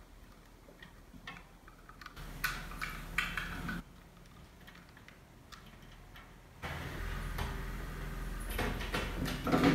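Small clicks and rustles of insulated wire and plastic being handled while a wire is fed into a miniature circuit breaker's terminal and led to the terminal strip of a plastic pump panel box. A low steady background noise comes in twice, about two seconds in and again after six seconds.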